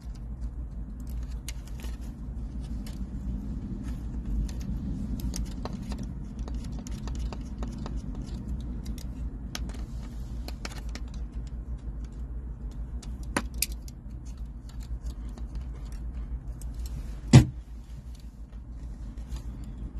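Small metallic clicks and scrapes of needle-nose pliers working a nut tight on the black wire's terminal post, over a low steady rumble. A louder sharp click comes about three seconds before the end.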